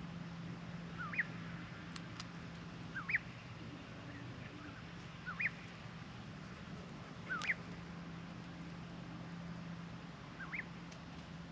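A bird repeats the same short call five times, one every two to three seconds. Each call is a brief lower note followed by a higher, upward-sweeping one. A faint steady low hum runs underneath.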